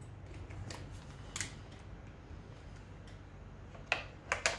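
Faint handling sounds: a single light click about a second and a half in, then three sharp clicks close together near the end. The clicks come as a cordless impact driver is picked up and its bit set on a screw in the concrete saw's plastic starter cover.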